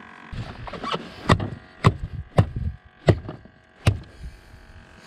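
A run of sharp knocks on the boat's deck, five loud ones about half a second to three-quarters of a second apart after a fainter first one, around a freshly landed lingcod.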